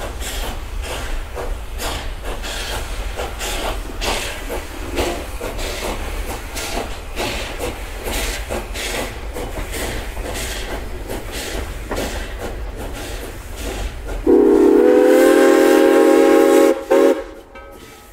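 Steam locomotive Nevada Northern 81 working past, with a constant low rumble and a run of sharp chuffs and clanks. About fourteen seconds in, its Southern Pacific six-chime whistle blows one long chord of several notes at once, then gives a brief second toot.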